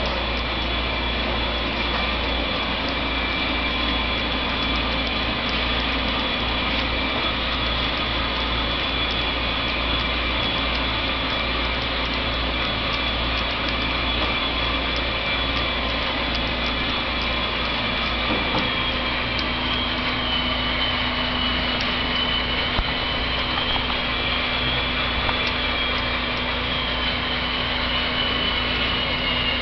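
HO-scale model coal train running on the layout: a steady rolling clatter from the hopper cars' wheels on the track, with a high whine that wavers and dips in pitch from about 19 seconds in.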